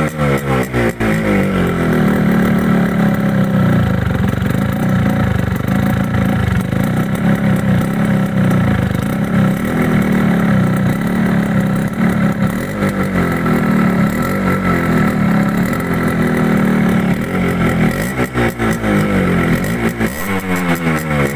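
Suzuki Shogun's 110 cc two-stroke, single-cylinder engine revved at standstill, heard at the exhaust silencer. The revs swing up and down at the start, are held high and fairly steady for most of the stretch, then swing up and down again near the end.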